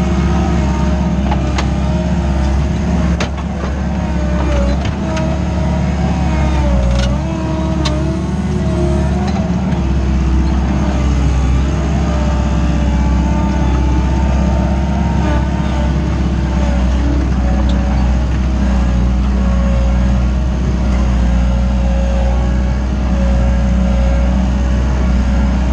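Wacker Neuson 901s skid-steer loader's 50 kW diesel engine running steadily under working load, heard from inside the cab, with a whine above it that wavers up and down in pitch. A few sharp clanks in the first several seconds.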